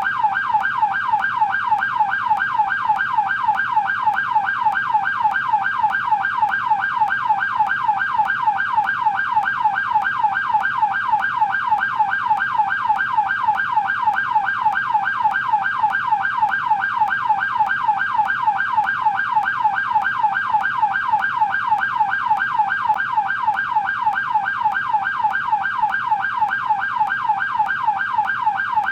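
American police car electronic siren in yelp mode: a fast, even wail sweeping up and down in pitch several times a second, steady and unbroken.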